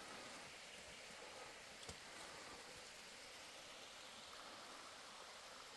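Near silence: a faint, steady outdoor hiss, with a light click about two seconds in.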